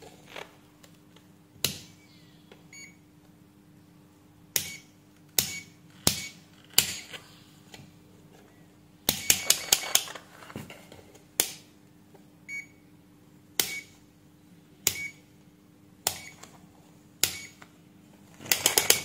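Aneng SZ303 multimeter's rotary selector switch clicking through its detents as the knob is turned, in single clicks and quick runs, with a couple of short faint beeps from the meter.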